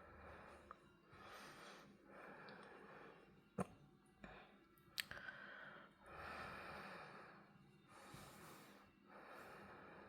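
Faint, slow breathing close to the microphone, soft airy breaths coming about once a second, with two sharp clicks a little past the middle.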